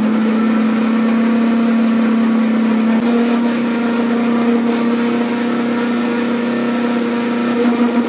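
Electric kitchen mixer grinder (mixie) running steadily, grinding roasted laddu ingredients into powder; its motor hum steps up slightly in pitch about three seconds in.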